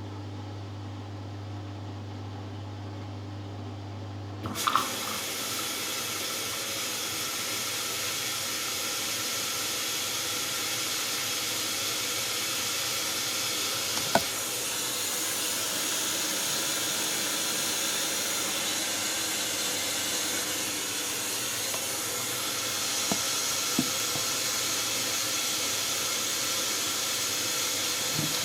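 Hoover Dynamic Next washing machine starting its last rinse: a low hum cuts off as the water inlet valve clicks open, and water rushes steadily into the drum through the detergent drawer, with a few light clicks.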